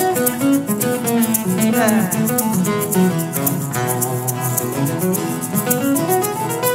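Acoustic guitar playing an instrumental break, picked melody notes with one quick falling slide about two seconds in, over a steady hand-shaker rhythm.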